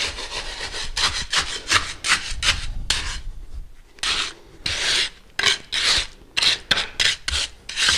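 Steel hand trowel scraping and working wet concrete mix, settling it down into place. Quick, close-packed strokes come first, then from about four seconds in separate longer swipes about twice a second.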